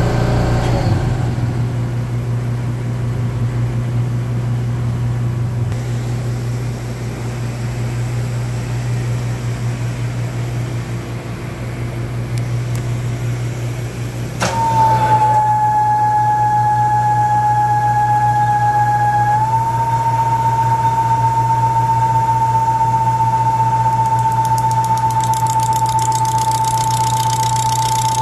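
Manual engine lathe running, turning a foam workpiece, with a steady motor hum. About halfway through there is a click and a steady high whine sets in, stepping slightly higher a few seconds later; near the end a high hiss rises over it.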